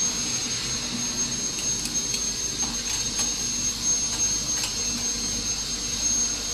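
Steady machine hum and hiss with a constant high-pitched whine, and a few faint clicks.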